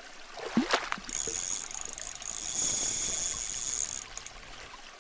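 Sound effect for an animated logo: a quick whoosh about half a second in, then a bright, hissing shimmer for about three seconds that cuts off suddenly near the end.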